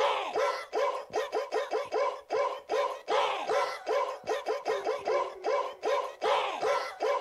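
Looped electronic music played live on a keyboard and drum pads: a quick repeating pattern of short pitched notes, about four a second, with a longer sound falling in pitch every three seconds or so.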